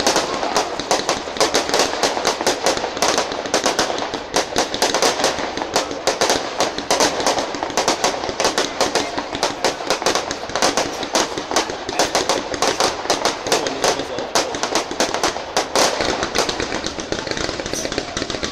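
Fireworks going off in a dense barrage: a rapid, unbroken string of bangs and crackles from shells and comets bursting overhead.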